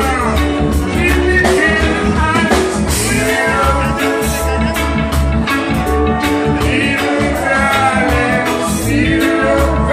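Live band music: a male singer singing into a microphone over electric guitars and a steady beat.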